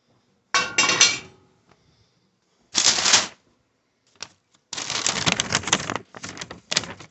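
Roasting sunflower seeds rattling and scraping in a pan in four separate bursts, a dense clicking clatter.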